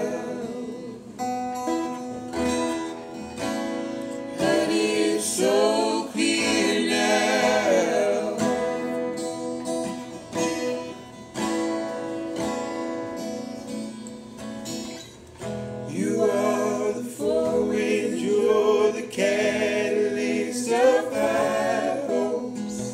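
Acoustic guitar strummed with a voice singing over it in long, wavering notes that carry no clear words.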